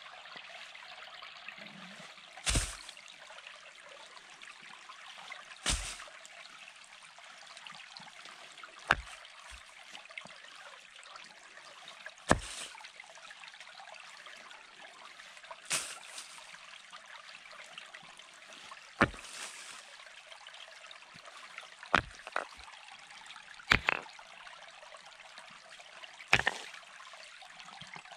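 A shallow stream running over a stony bed, with a sharp stone-on-stone clack every few seconds as stones are lifted and set down.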